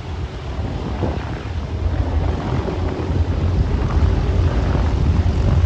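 The B-17G Flying Fortress's Wright R-1820 Cyclone radial engines running at low taxi power, a deep rumble that slowly grows louder, with wind buffeting the microphone.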